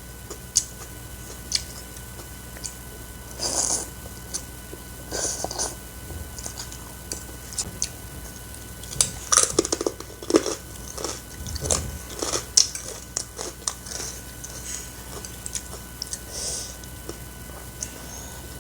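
Close-miked eating sounds: biting and chewing, with scattered small clicks and several short louder bursts of crunching or slurping.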